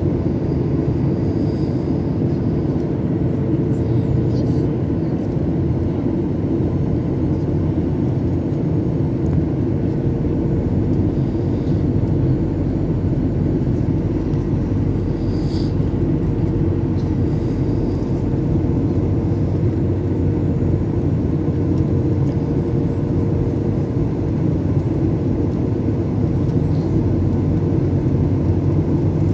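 Steady low rumble of a jet airliner's engines and rushing air heard inside the cabin during descent, with a faint steady hum above it.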